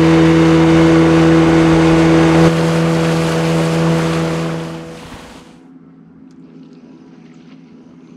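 A fishing boat's tiller outboard motor running steadily at speed with an even hum. It drops in level about two and a half seconds in and fades out about five seconds in.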